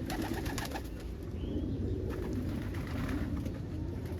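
Domestic pigeons cooing, several low overlapping coos, with a few short clicks in the first second.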